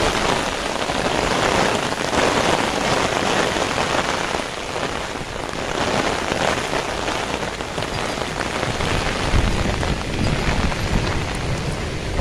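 Heavy rain falling on an umbrella held close by, a dense steady crackle of drops. A low rumble builds underneath from about nine seconds in.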